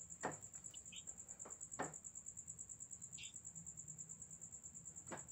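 Faint, steady high-pitched insect trill pulsing several times a second, with a few soft clicks. Otherwise close to silence.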